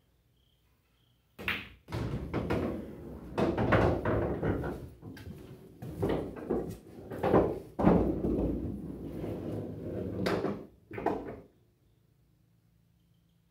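A cue tip strikes the cue ball about a second and a half in, then a pocketed ball rolls and clatters for about nine seconds through the bar-box pool table's ball-return channel, with a couple of last knocks before it stops.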